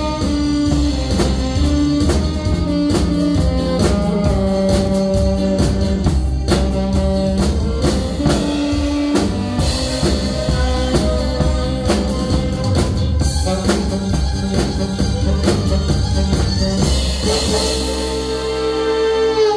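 Live alto saxophone playing a trot melody over a drum kit with a steady beat. Near the end the saxophone holds a long final note under ringing cymbals.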